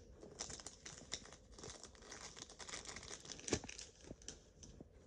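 Faint crinkling and rustling of plastic packaging being handled, an irregular crackle with one sharper crackle about three and a half seconds in.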